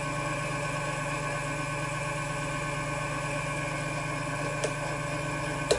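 Belt-driven mini lathe running steadily at constant speed, a motor hum with several fixed tones as it spins a cork rod grip on a steel mandrel. A short click near the end.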